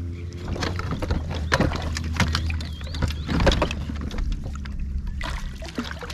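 Water splashing and sharp knocks as a small hooked black bass is played at the surface beside a pontoon fishing boat, over a steady low hum.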